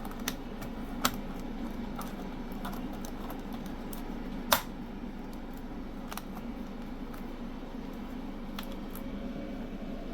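Scattered plastic clicks as a replacement laptop keyboard is pressed down at its corners and snaps into its frame, the loudest about four and a half seconds in, over a steady low hum.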